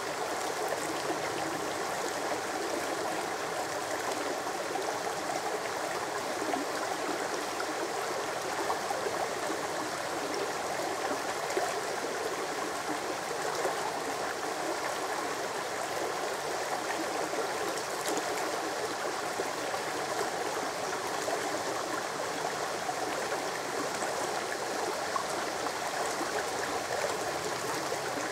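Shallow brook running over a stony riffle: a steady, even rushing of water.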